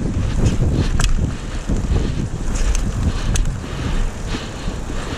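Strong wind buffeting the microphone in gusts, with a couple of sharp clicks, one about a second in and another past three seconds.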